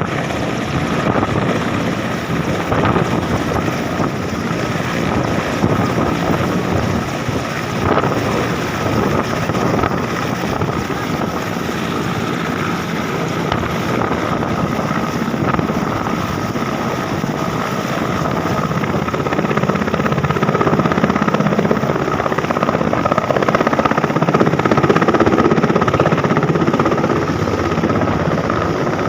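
Military helicopter running on the ground, its turbine and rotor going steadily, with a steady high whine over the rotor noise.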